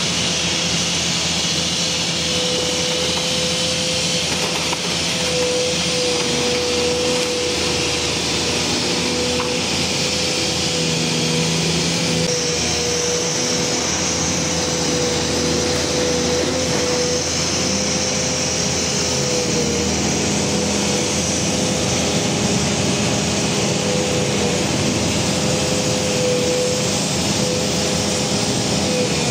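Volvo EC460C demolition excavator working, its diesel engine and hydraulics running steadily under load, with a steady whine over the engine noise.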